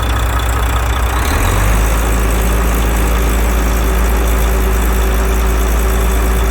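Volvo FH13's 13-litre inline-six diesel engine running, then rising slightly in speed about a second in under a touch of throttle and holding steady. It is running after a rocker arm repair, and the metallic knocking and grinding it came in with is, by the mechanics' ear, gone.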